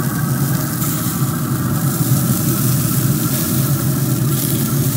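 Steady low mechanical hum of a Pit Boss 700FB pellet grill's fan running during the cook, with a hiss in the highs that swells and fades.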